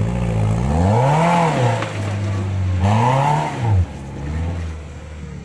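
Maruti Gypsy's petrol engine revving hard twice under load on a steep climb, its pitch swelling up and falling back over about a second and a half each time. After the second rev, about four seconds in, it drops to a quieter, lower running note.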